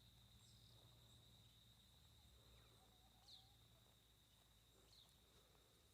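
Near silence: faint outdoor ambience with a steady high-pitched tone and a few faint short chirps.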